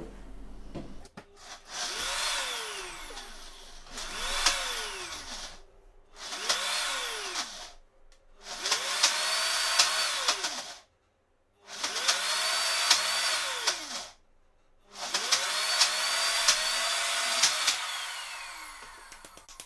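NutriBullet blender run in six short pulses, blending basil, pine nuts, parmesan and oil into pesto. The motor whine rises as each pulse starts and falls as it stops, and the later pulses run longer.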